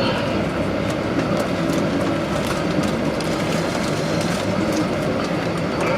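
Inside the cabin of a moving bus: a steady engine-and-road rumble, with scattered light rattles and clicks.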